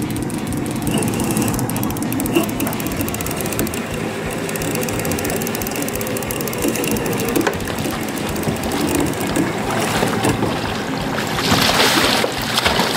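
Boat motor running steadily at trolling speed. About eleven seconds in, water splashes loudly for about a second as a hooked silver salmon thrashes at the surface beside the boat.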